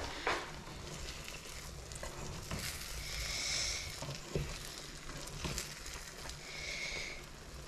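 Egg omelette sizzling quietly in a non-stick frying pan, with a few light taps of a nylon spatula as its edges are tucked in. The sizzle swells briefly twice, about three seconds in and near the end.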